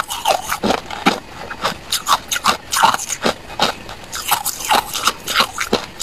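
Hard ice cubes crunched and chewed between the teeth close to the microphone: rapid sharp cracking crunches, about three a second.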